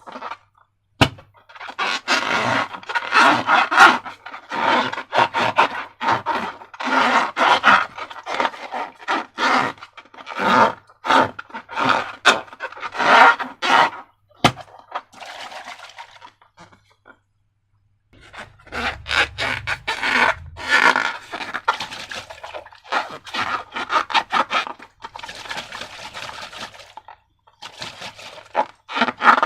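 Slime and balloon being worked by hand: a run of short scraping, rubbing strokes, with a pause of about two seconds a little past the middle.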